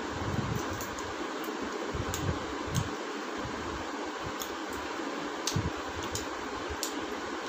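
Mukbang eating sounds: scattered small clicks and smacks from people eating curry and luchi by hand, with a few dull low thumps, over a steady fan-like hiss.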